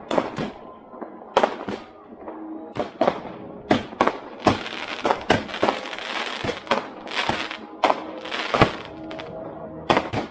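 Consumer fireworks going off on New Year's Eve: many sharp bangs and cracks at irregular intervals, some much louder than others, with a rushing hiss from about four to nine seconds in.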